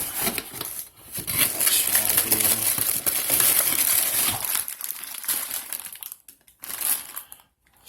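Packaging crinkling and rustling as it is handled, followed near the end by a few light clicks and knocks.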